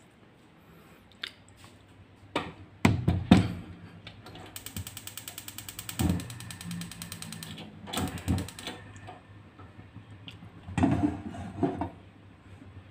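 Gas hob's spark igniter clicking rapidly for about a second and a half as the burner is lit under a pot of cooking oil. A few knocks and clatters of handling come before and after.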